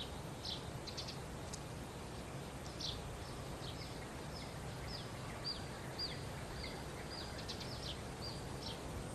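Birds chirping: a string of short, high chirps, many of them falling quickly in pitch, over steady low background noise.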